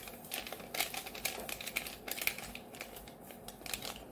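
A paper sachet of instant yeast being tapped and shaken over a glass bowl as the granules pour out: an irregular run of light ticks and rustles, several a second.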